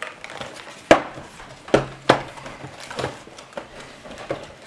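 Boxed toy packaging, cardboard with a plastic window, handled and knocked against a wooden table: a few sharp knocks, the loudest about a second in, with quieter handling noise between.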